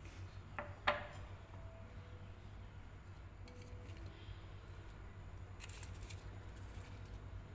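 Kitchen handling clicks: two quick sharp clicks about a second in, the second louder with a brief ring, then light clattering near six seconds, over a steady low hum.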